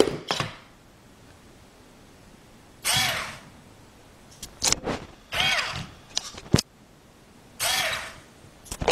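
Small electric gear motors of a homemade wooden useless box whirring in short bursts, each burst rising and then falling in pitch as the motor spins up and winds down. Sharp clicks come between the bursts, one of them loud a little past halfway.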